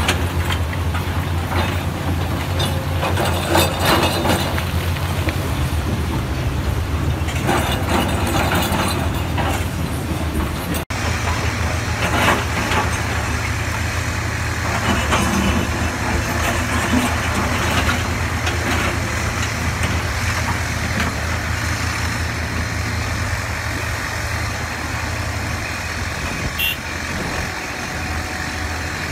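Komatsu hydraulic excavator's diesel engine running steadily under load as the steel bucket digs and scrapes through rock and gravel, with rocks clattering now and then. A short high squeak near the end.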